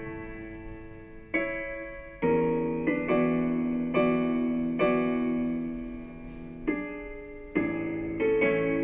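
Background piano music: slow, sustained chords struck about once a second, each ringing and fading before the next.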